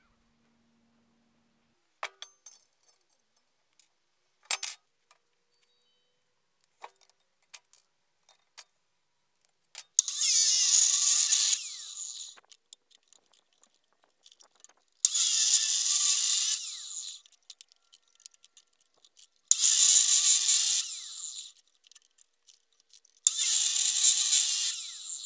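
Electric abrasive cut-off saw (chop saw) cutting through steel pipe in four separate cuts, each a loud grinding hiss of about two seconds that dies away as the blade spins down. Before the cuts there are a few scattered clicks and knocks from handling and clamping the pipe.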